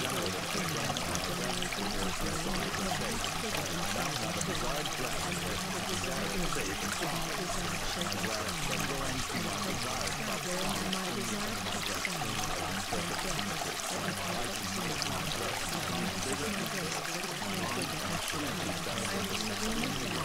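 Steady sound of running water, like a flowing stream, continuous and unchanging.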